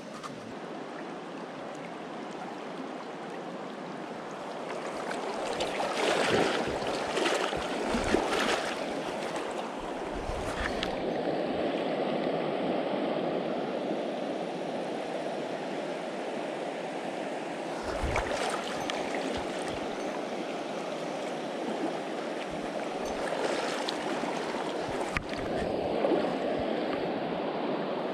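Steady rushing of a mountain trout river flowing over stones, with a few brief louder bursts of noise scattered through it.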